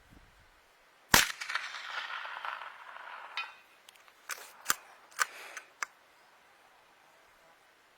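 .22 LR rifle shot about a second in, its report trailing off over the next two seconds. It is followed by a quick run of five sharp clicks.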